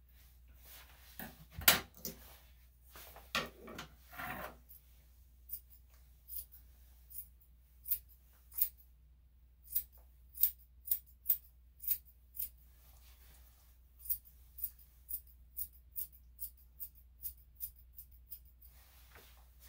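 Grooming scissors snipping through a dog's coat, a short crisp snip about every half second for most of the stretch. In the first few seconds there is louder rustling and one sharp knock, the loudest sound.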